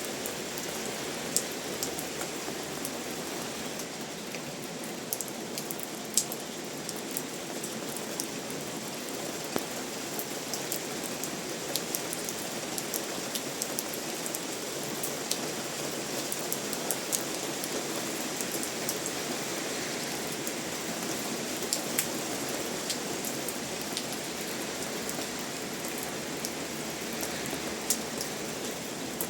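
Steady rain falling, with individual drops now and then striking sharply and close.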